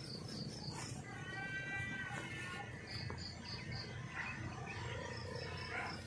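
Outdoor ambience of a grassy field: high chirps repeated in runs of four or five, and a drawn-out animal call a little over a second long about a second in, over a steady low rumble.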